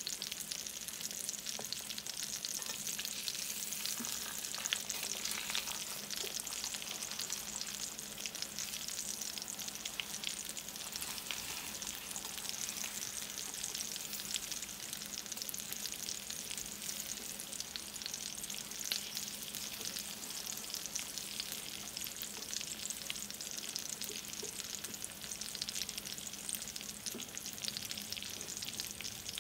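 Eggs frying in grease in a stainless steel skillet, sizzling steadily, with a plastic spatula stirring and scraping them as they are scrambled.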